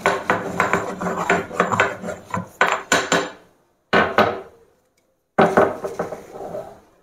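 Black peppercorns being crushed by hand: rapid, repeated pounding knocks with some grinding, in three stretches broken by two short pauses.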